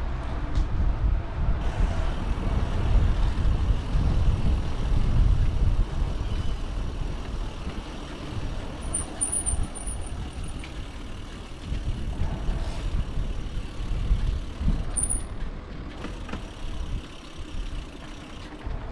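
Wind buffeting the microphone while riding a bicycle along a path: a loud, uneven low rumble. A few brief high chirps come about nine seconds in and again near fifteen seconds.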